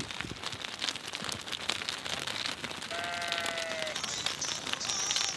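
A flock of sheep walking on a paved road: a dense patter of small hoof clicks, with one drawn-out call about three seconds in.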